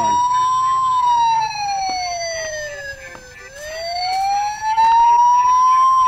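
Toy ambulance's electronic siren playing a slow wail: the pitch slides down for about two and a half seconds, then climbs back up.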